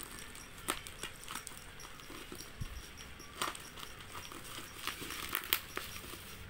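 Plastic parcel wrapping crinkling and crackling as it is handled, in scattered short crackles and clicks, with a few sharper ones near the end as scissors are brought to it.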